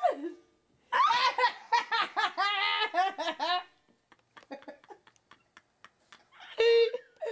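A person laughing hard in a long fit of bouncing, high-pitched giggles, then a short lull with a few faint clicks, and a second burst of laughter near the end.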